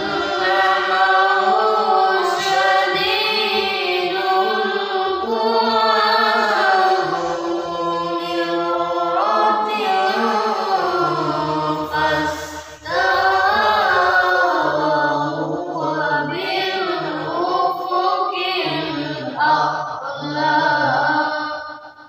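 A young voice reciting the Quran in the melodic qari style: long, ornamented phrases that rise and fall in pitch, with a brief pause about halfway through.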